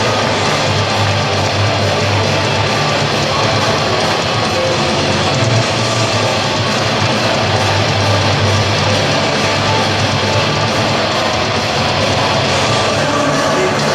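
Loud rock music with distorted electric guitar playing continuously.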